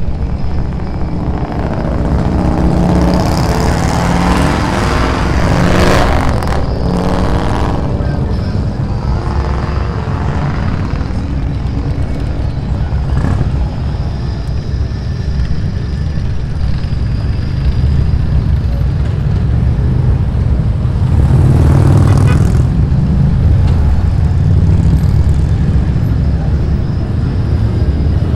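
Motorcycle engines rumbling in slow street traffic, with bikes revving and swelling past, loudest about six seconds in and again about twenty-two seconds in.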